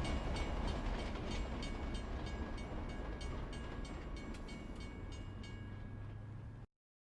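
Train rumbling along with a regular clicking of wheels over rail joints, about three clicks a second, slowly fading away, then cutting off abruptly near the end.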